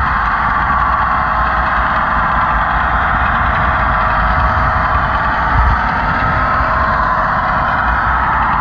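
HO-scale model train rolling along the track, a steady rumbling whir heard up close from a camera riding on the flatcar being pushed by the locomotive.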